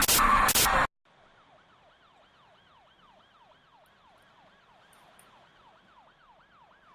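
Faint siren wailing in quick repeated sweeps, about three a second, after a loud noisy passage with sharp clicks that cuts off abruptly about a second in.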